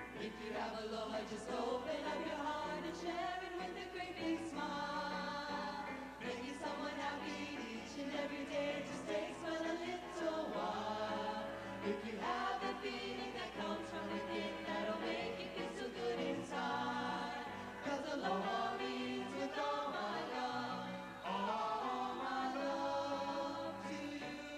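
A Hawaiian show group's choir singing together in harmony over instrumental accompaniment, the melody moving steadily through several phrases.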